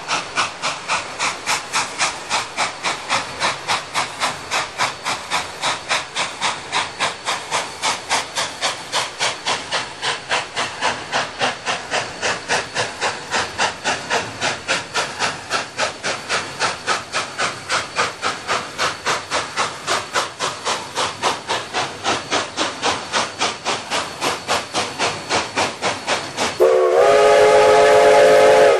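Cumbres & Toltec narrow-gauge steam locomotive working hard, its exhaust chuffing in a quick, steady rhythm. Near the end its steam whistle blows a long blast of several tones, swooping up at the start; this is the loudest sound.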